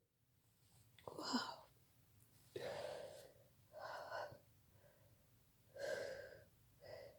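A person's quiet gasping breaths during a sneezing fit, five short ones spaced one to two seconds apart, the first with a brief falling voice.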